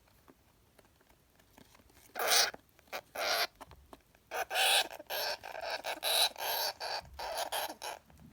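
Syrian hamster screaming: short, shrill squeals, two at first about two seconds in, then a rapid string of them through the second half. The screams are the sign of an angry, aggressive hamster, which the owner puts down to anger and cage aggression.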